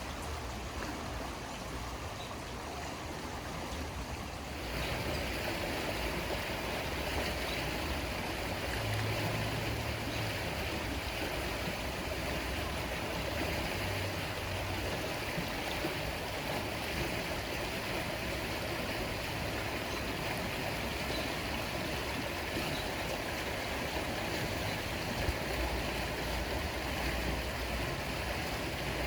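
River water flowing steadily, an even rushing sound that gets louder about five seconds in.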